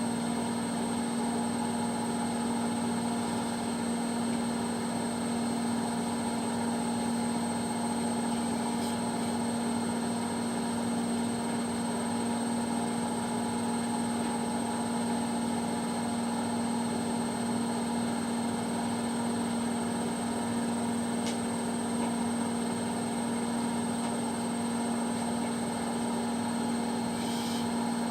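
Indesit washing machine spinning steadily at its top speed of 1200 rpm: a constant drone with a steady motor whine.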